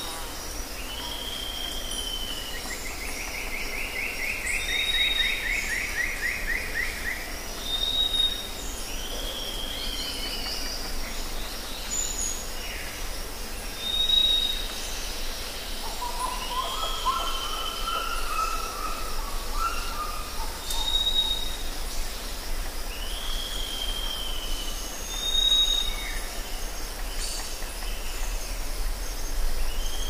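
Rainforest ambience of several birds calling: a short, high, clear whistle repeated every few seconds, slurred downward calls in between, a long rapid trill from about three seconds in, and a lower warbling call around the middle, over a steady high hiss of insects.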